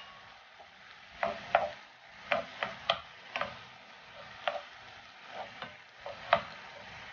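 Wooden spatula stirring sliced beef in sauce in a hot frying pan, knocking and scraping against the pan about a dozen times, over a steady light sizzle.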